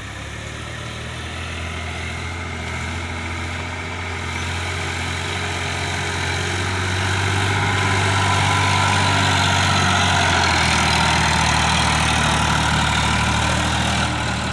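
Sonalika tractor's diesel engine running steadily while pulling a soil-loaded trailer over rough dirt, getting louder as it approaches and loudest about two-thirds of the way through.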